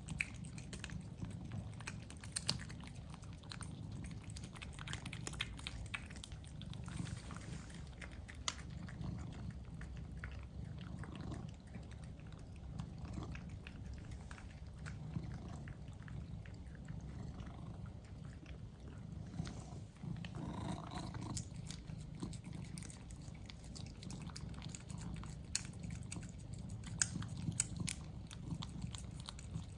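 Two cats licking lickable puree treats from squeeze tubes: quick wet licking and smacking clicks over a steady low hum.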